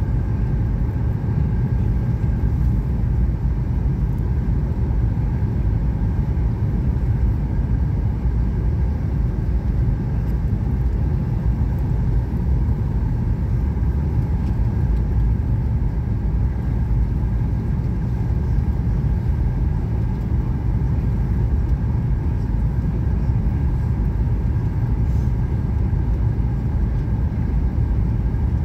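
Airliner cabin noise on descent: the steady low rumble of the Boeing jet's engines and the airflow over the fuselage, heard from a window seat inside the cabin, with a faint steady high whine.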